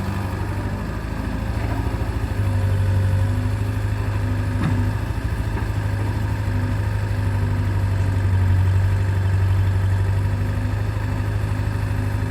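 Diesel engine of heavy machinery running steadily with a deep, even drone, and a single short click about four and a half seconds in.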